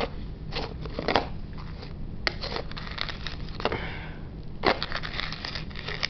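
A metal spoon scraping and clicking against a bowl as it stirs and scoops sticky melted marshmallow, in irregular strokes with a few sharper clinks.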